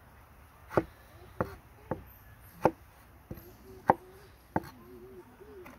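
Knife slicing tomatoes and striking a wooden cutting board: about seven sharp knocks at an uneven pace.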